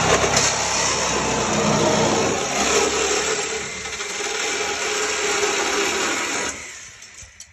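DeWalt reciprocating saw (Sawzall) cutting through the sheet-steel rear wheel well, running steadily and then stopping about six and a half seconds in.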